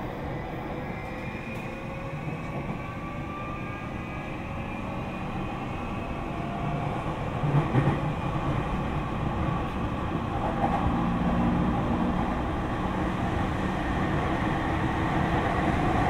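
Running noise inside a Tokyu 3020 series train carriage: a steady rumble of wheels on rail, with a faint whine that falls slowly in pitch over the first half. It grows a little louder toward the end.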